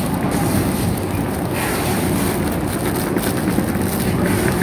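Steady street noise: low traffic rumble mixed with wind on the microphone.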